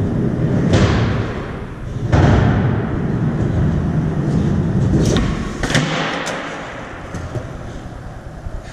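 Skateboard wheels rolling on a wooden box ledge and concrete floor, with four sharp clacks and thuds of the board hitting and landing. The loudest comes about two seconds in. The rolling rumble fades away after about six seconds.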